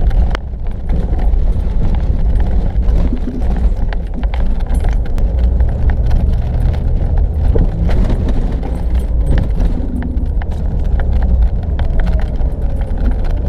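Road and engine noise inside a moving Jeep Grand Cherokee ZJ: a steady low rumble with frequent small knocks and rattles.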